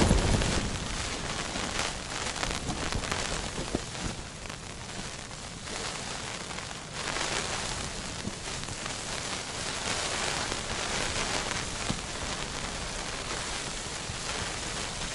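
Rain mixed with snow pelting the fabric of an ice-fishing tent, heard from inside: a dense, even patter, loudest at the very start.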